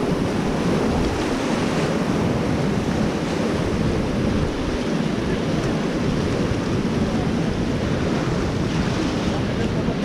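Steady rushing of a fast, rocky whitewater river around an inflatable raft, with wind buffeting the microphone.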